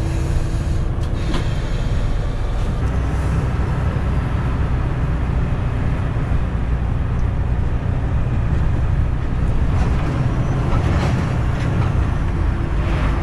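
Mercedes-Benz Actros truck driving along a street, heard from inside the cab: a steady low engine drone with road noise.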